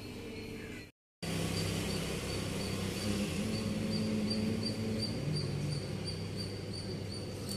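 A small bird chirping over and over, one short high note about three times a second, over a low steady background hum. The sound cuts out for a moment about a second in.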